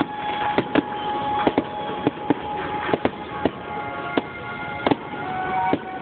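Fireworks display: aerial shells bursting with sharp bangs, about a dozen at irregular intervals, some in quick pairs. Music with sustained tones plays underneath.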